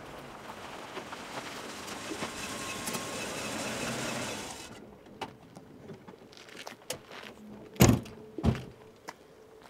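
A Mercedes-Benz SL convertible rolling in over gravel, the tyre crunch and engine growing louder until it cuts off abruptly about four and a half seconds in. Then a few small clicks and two car door slams about half a second apart near the end.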